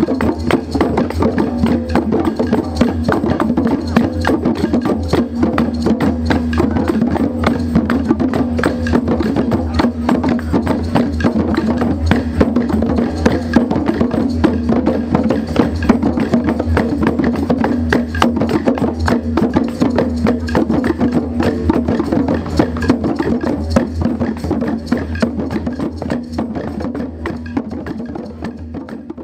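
Music with fast, dense percussion over a steady low note, fading out over the last few seconds.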